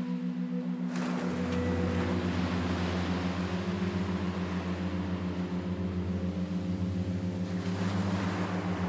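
Low droning hum with a fast steady pulse. A deeper hum and a swelling wash of noise, like surf, come in about a second in and rise again near the end.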